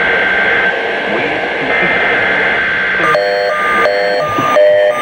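NOAA weather radio signal received over a radio scanner: a hissy broadcast carrying two steady tones for about three seconds, then a repeating series of short electronic alert beeps, each several tones at once, changing pitch from beep to beep, part of a weekly alert test.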